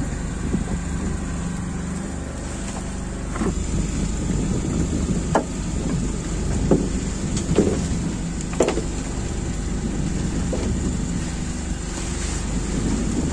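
Fishing boat's engine running steadily with a low hum, with several short sharp sounds over it in the middle stretch.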